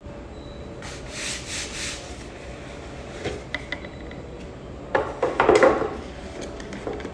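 Rolex watch box and packaging being handled: three soft rubbing strokes, a few light clicks, then a louder scraping rustle about five seconds in.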